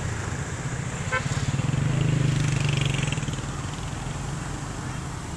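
A motor vehicle engine hum that swells about two seconds in and then fades, over a steady rush of water pouring out under a canal sluice gate.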